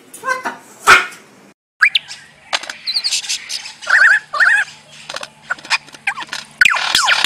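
Superb lyrebird calling in a fast, varied run of clicks, chirps and whistles, with rapid falling sweeps near the end. Before the bird comes in there is a loud short sound about a second in.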